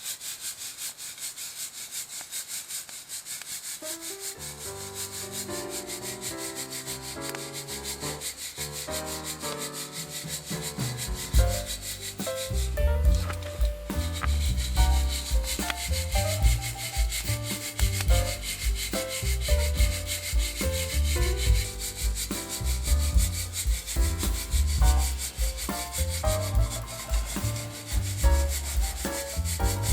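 Coffee beans rattling and rasping steadily as they are shaken in a hand-held mesh roaster over a fire. Background music with a melody comes in about four seconds in, and a bass line joins it later.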